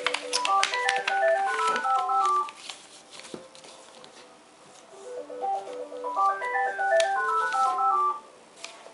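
A short melody of quick, clear notes plays twice, once at the start and again about five seconds later. Between and under it, paper rustles and creases as a sheet of printed card is folded by hand.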